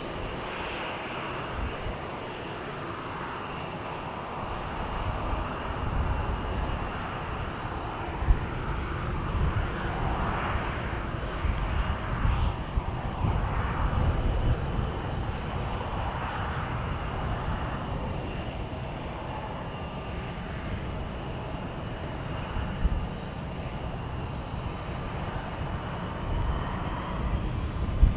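Jet engines of a taxiing Boeing 737 airliner: a steady high whine over a low, uneven rumble that swells in the middle. Two brief sharp knocks stand out, about eight and twenty-three seconds in.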